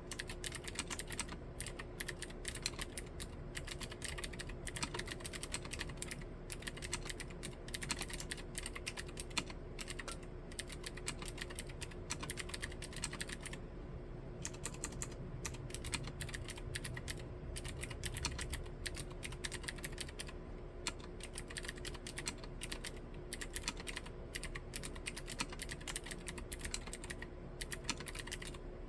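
Continuous fast typing on a Novelkeys NK87 Entry mechanical keyboard with Gateron Green clicky switches: a dense run of crisp clicks, one per keystroke, with a few short pauses.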